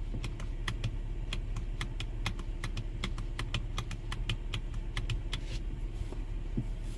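Rapid, irregular plastic clicks of a car door's lock/unlock switch being pressed over and over, over a steady low hum; no lock actuator answers, as the switch is sending no input.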